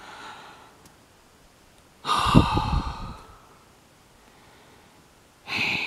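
Two weary sighs from a person voicing the tired characters: a long, loud one about two seconds in and a shorter one near the end.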